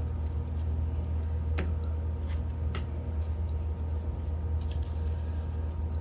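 A few faint clicks and taps from trading cards and their packaging being handled, over a steady low hum.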